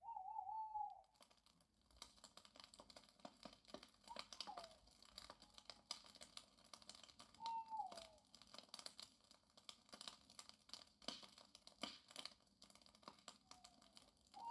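Faint crackling and popping of burning firewood, with four short calls that fall in pitch, one at the start and others about four, seven and thirteen seconds in, from an animal.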